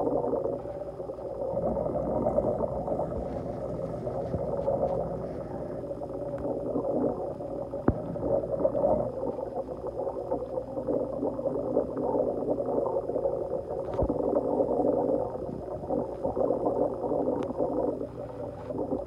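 Steady gurgling, bubbling water with a low hum from the aquarium's running equipment, and two sharp clicks, one a little under halfway in and one about three quarters in.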